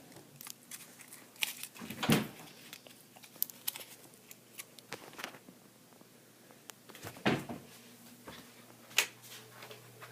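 Scattered light knocks and clicks in a small room, with louder ones about two seconds in, around seven seconds and about nine seconds in; no alarm horn or tone is sounding.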